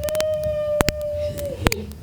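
A long, high wailing cry, held on one pitch and dropping away near the end, with sharp clicks scattered through it.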